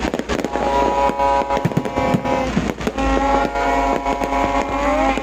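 Fireworks going off in quick, irregular bangs and crackles. From about a second in, several steady pitched tones sound over them, one sliding in pitch near the end.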